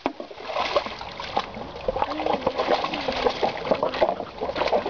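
Weimaraner splashing in shallow stream water, plunging its muzzle into the water after rocks, with irregular short splashes over the running stream.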